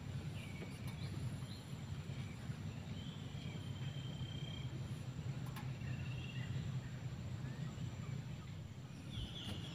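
Outdoor ambience: a steady low rumble with a few short, high chirps scattered through it.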